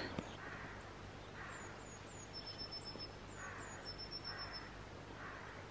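Faint wild birdsong: short, high falling chirps and, twice, a thin high trill. Softer rough-sounding calls come lower down about once a second.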